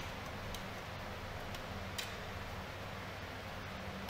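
A few light clicks from hands handling an open desktop computer's steel chassis, over a steady low hum.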